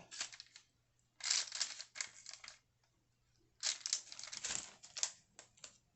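Parchment paper crinkling and rustling on a cookie sheet as a glass presses down balls of cookie dough, in three bouts with short pauses between.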